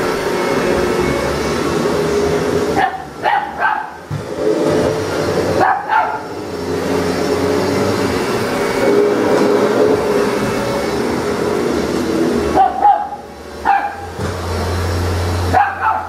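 Upright vacuum cleaner running steadily on a rug while a young Rottweiler puppy barks and yips in short bursts about four times.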